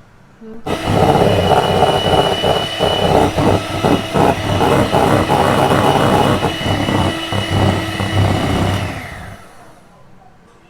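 Electric hand mixer switched on and whipping egg whites in a deep bowl: a steady high-pitched motor whine with a rapid clatter, starting about a second in and winding down near the end.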